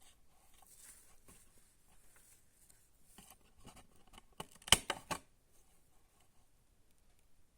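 A CD and its plastic packaging being handled: soft rustling, then a quick run of sharp plastic clicks a little past the middle.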